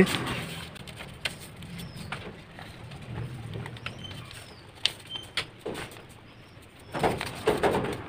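Thin A4 paper being folded and creased by hand: soft rustling with a few sharp crinkles, and louder handling of the paper near the end.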